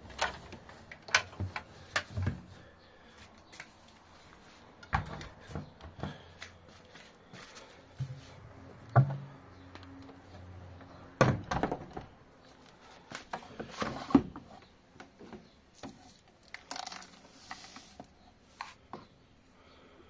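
Handling noises at a front-loading washing machine as laundry is loaded: clothes rustling, with scattered sharp knocks and clicks against the drum, door and detergent drawer.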